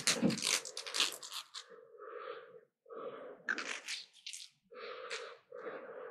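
Close-up mouth sounds of a person eating raw live octopus (sannakji): a string of short, wet slurps and chews, each lasting about half a second, with brief pauses between them.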